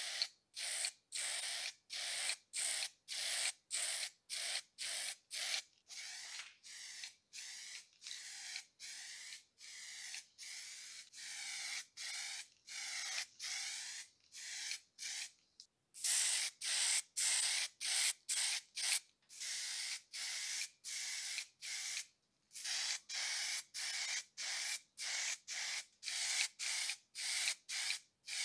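Rust-protective primer being sprayed onto metal lathe parts: a string of short hissing spray bursts, about two a second, with silent gaps between and a few longer passes in the middle.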